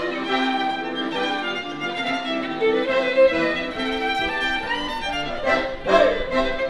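A live violin and accordion duo playing a tune, the violin leading with sustained bowed melody notes over the accordion.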